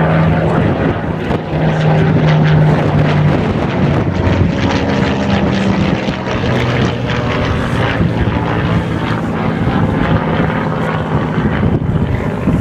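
Supermarine Spitfire's piston engine droning as the fighter flies past overhead, a loud steady note whose pitch shifts a few times as it banks and pulls away.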